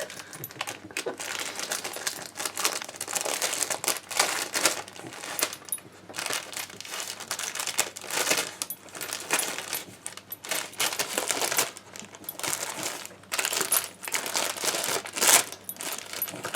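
Wrapping paper crinkling, rustling and tearing in irregular bursts as a dog rips open presents.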